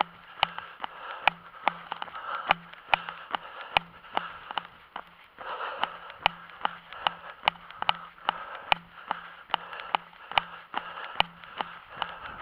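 A runner's footfalls on a paved sidewalk, a sharp tick with each stride about two and a half times a second, steady throughout, over a faint hiss.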